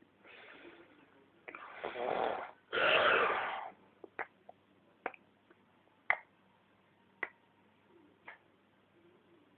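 A man snoring: a faint breath, then two long, loud snores of about a second each, the second the loudest. Several short, sharp clicks follow at intervals of about a second.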